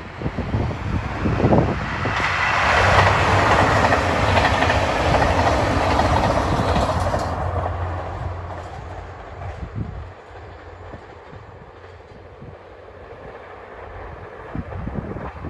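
A diesel train passing over the level crossing: the running noise of wheels on rails and a low engine hum build up about two seconds in, stay loud for several seconds, then fade away.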